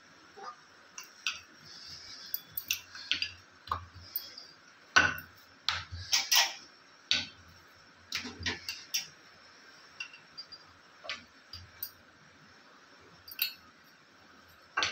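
Dough being rolled out with a wooden rolling pin on a stone countertop: irregular light knocks and clicks as the pin rolls and taps on the stone, a cluster of louder knocks about five to six and a half seconds in.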